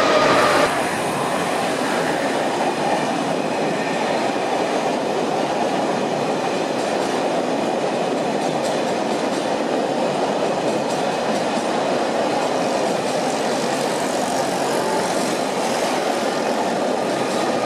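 Train of passenger coaches rolling past through station trackwork: a steady rumble of steel wheels on rail.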